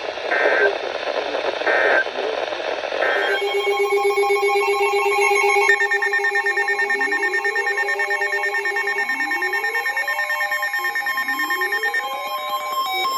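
Weather-radio static carrying three short bursts of EAS/SAME digital data tones, the warbling end-of-message code that closes the tornado warning. It is followed about three seconds in by a loud, steady electronic alert tone made of several pitches, with a rising sweep repeating about every two seconds.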